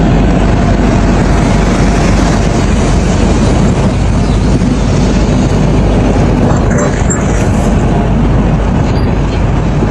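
Excavator diesel engine running steadily.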